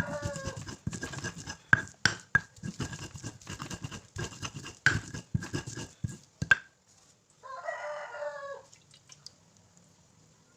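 Irregular scraping and knocking of a pestle grinding spices in a mortar, stopping about six and a half seconds in. A rooster crows briefly at the start and again at about seven and a half seconds.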